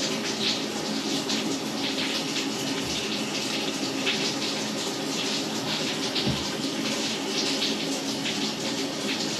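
Shower running: a steady hiss of water spray.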